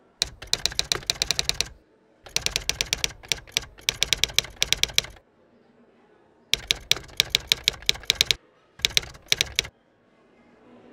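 Typewriter keys striking in quick runs, about seven or eight strikes a second, in four bursts of typing with short pauses between them.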